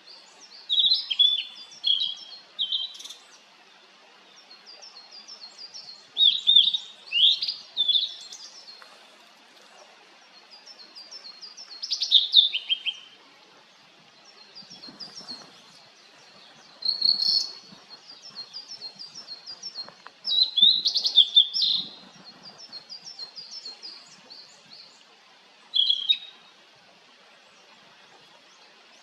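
Blue-and-white flycatcher singing: loud clear whistled phrases, several notes each, repeated every few seconds, with quieter runs of fast repeated short notes between them.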